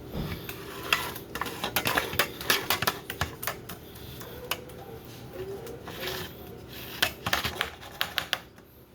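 A kitchen utensil clicking and tapping repeatedly against a bowl, in quick irregular runs of clicks.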